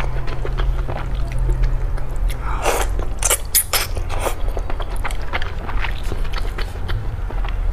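Close-miked eating: noodles slurped up from a bowl of soup and chewed, with the loudest wet slurps between about two and a half and four and a half seconds in. A steady low hum runs underneath.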